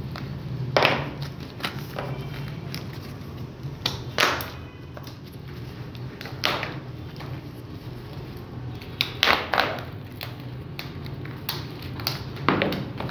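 Scattered knocks and rustles of hands handling a sandal and banknotes on a wooden desk, over a steady low hum.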